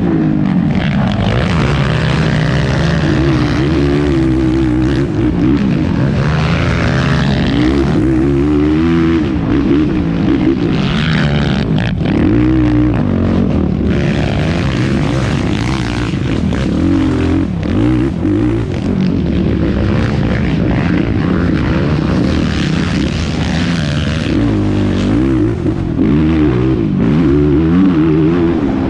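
Yamaha YFZ450R quad's single-cylinder four-stroke engine revving hard and easing off again and again as it is ridden at race pace, the pitch rising and falling with each throttle change.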